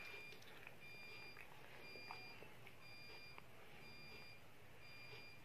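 Faint electronic beeping over quiet room tone: a short, high beep repeating about once a second.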